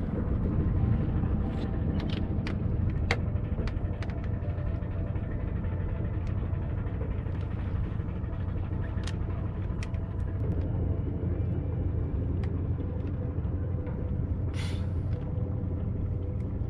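Heavy engine of an old three-masted sailing ship running, a deep steady rumble. Scattered light ticks and a short hiss about fifteen seconds in.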